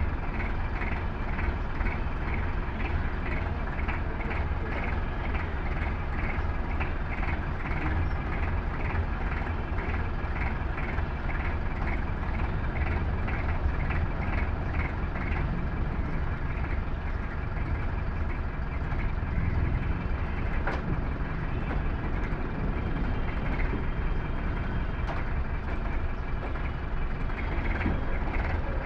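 Voltas forklift's engine running steadily while the truck manoeuvres, with its reversing beeper sounding about twice a second through the first half and again near the end.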